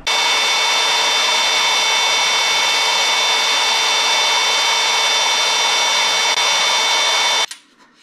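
Milwaukee FUEL cordless right-angle drill running steadily while drilling a hole, with a constant high whine over the motor noise. It cuts off suddenly about seven and a half seconds in.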